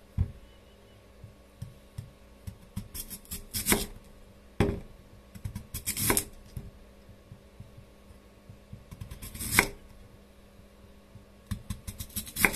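Kitchen knife slicing raw daikon radish into thick rounds on a wooden cutting board: a crisp crunch through the root ending in a knock of the blade on the board, about five cuts a couple of seconds apart.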